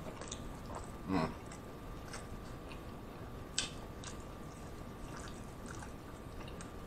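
Close-miked chewing and mouth clicks of someone eating a crunchy hard-shell taco, soft and sporadic, with one louder mouth sound about a second in.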